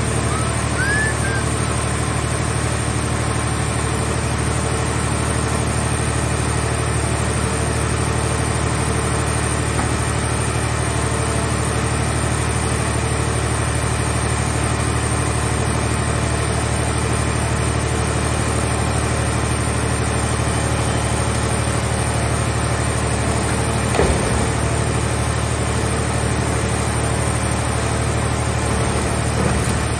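Hydraulic scrap-car baler's power unit running with a steady low drone, with one short metallic knock about 24 seconds in and a lighter one near the end.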